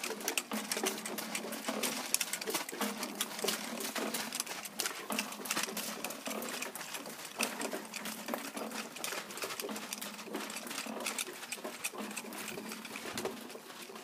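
Home-built bird scarer running: an old pump jack driven by an electric motor jerks a rope up and down over the trees. The plastic milk jugs and plastic bags hung on the rope flap and rattle in a dense, irregular clatter.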